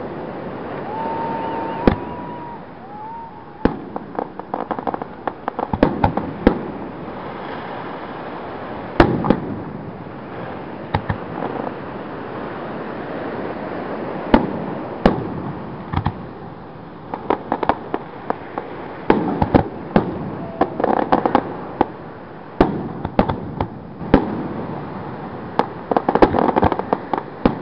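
Aerial fireworks display: shell bursts going off one after another with sharp bangs, and stretches of dense crackling, heaviest in the last few seconds. A short whistle sounds about a second in.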